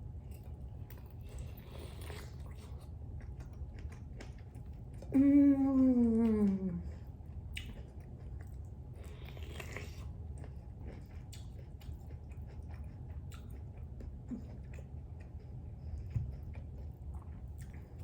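Close chewing and mouth sounds of a person eating, with many small wet clicks. About five seconds in comes the loudest sound: a brief voiced sound that falls in pitch, lasting about a second and a half.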